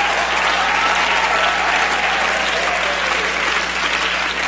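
Large audience applauding steadily, with a few voices calling out in the crowd.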